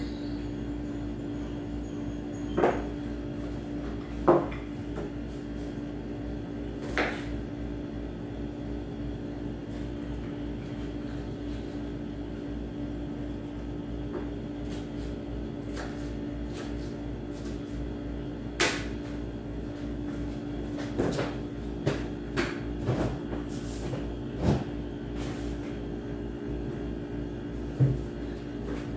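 Occasional sharp knocks and clacks of a knife and kitchen utensils against a wooden cutting board and table, spaced seconds apart rather than in a chopping rhythm, over a steady background hum.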